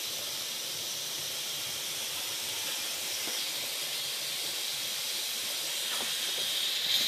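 Steady hiss of water heating and steaming in the lower pot of a couscoussier, its joint sealed with a cloth. A couple of light clicks near the end.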